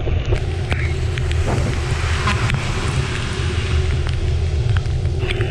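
Steady low rumble of wind buffeting the microphone and road noise while riding a bike, with a faint steady hum and scattered sharp clicks and knocks throughout.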